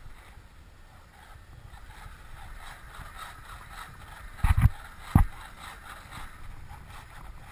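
Small RC aileron servos whirring in many short bursts as the ailerons are moved back and forth, over wind rumbling on the microphone. Two loud bumps come at about four and a half and five seconds in.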